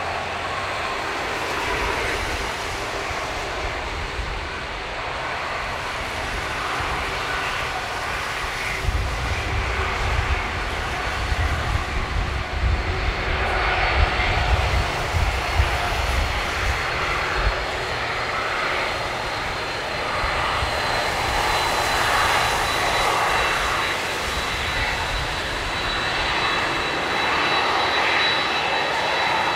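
Boeing 767-300 freighter's twin turbofan engines running as the jet slows and taxis after landing. The sound is a steady roar with a gusty low rumble through the middle, and a thin, steady high engine whine that comes in about halfway through and holds to the end.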